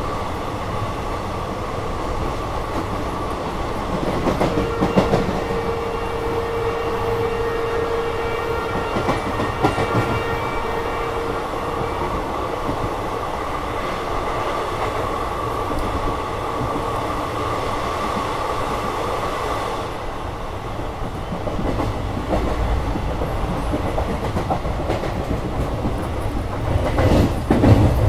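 Express passenger train running at speed, heard from the open coach doorway: a steady rumble of wheels on rail with clickety-clack over the joints. A faint steady whine rides over it for much of the first twenty seconds, the low rumble grows heavier after that, and a few sharper knocks come near the end.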